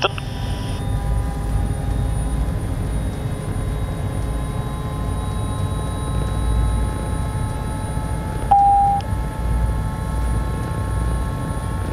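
Bell 407GXi helicopter's turboshaft engine running at ground idle just after a self-sustaining start, rotors turning: a steady low rumble with thin, even high whining tones over it. A brief beep sounds about eight and a half seconds in.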